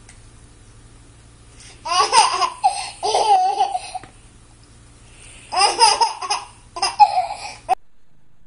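A baby laughing in two bouts of high-pitched giggling, each about two seconds long; the second is cut off abruptly.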